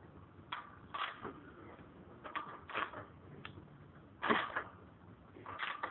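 Scattered short mechanical clicks and creaks, about seven of them spread unevenly, a few with a faint ring, from hands-on work on a motorcycle's rear end around the swingarm bracket.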